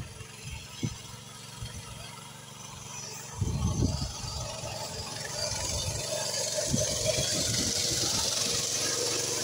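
Walk-behind-tractor engine of a homemade trike running, growing steadily louder over the second half, with wind buffeting the microphone in gusts.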